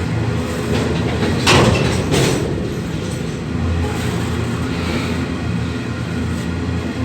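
Electric passenger train running through the station: a steady low rumble of motors and wheels, with two loud clanks about a second and a half and two seconds in.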